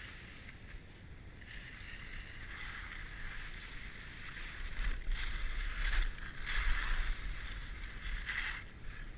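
Skis carving and scraping over groomed snow, a hiss that swells with each turn, with wind rumbling on the microphone, strongest in the middle.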